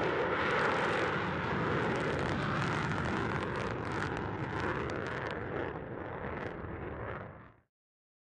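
Jet noise from a Lockheed Martin F-35A's single Pratt & Whitney F135 turbofan as the jet passes low with gear down: a loud, dense rush with crackle through it that eases off slightly, then cuts off suddenly near the end.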